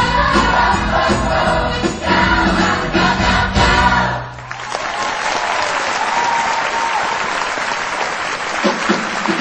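A stage-musical ensemble and band sing and play the final bars of an upbeat number, cutting off sharply about four seconds in. A theatre audience then applauds steadily, with some cheering.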